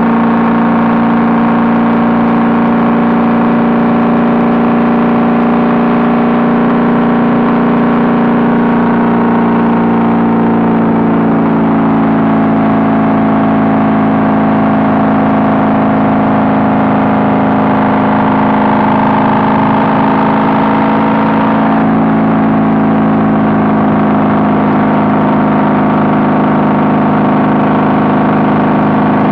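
Honda Valkyrie's flat-six engine running steadily through Cobra six-into-six exhaust pipes while riding. Its note falls a little about ten seconds in, then holds steady.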